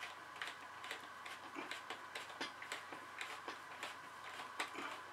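Faint, fairly even clicks, about two to three a second, from a hand screwdriver turning a screw through an aluminum flat bar into its nut.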